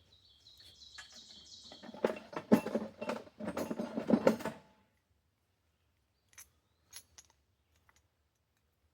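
Rustling and clattering of wire ties being handled, loudest in the middle, followed by a few light clicks near the end. A high bird call sounds during the first couple of seconds.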